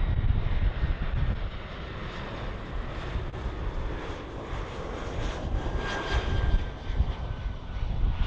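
Jet airliner's engines passing: a steady rush over a gusty low rumble, with a faint whine that sinks slightly in pitch over the last couple of seconds.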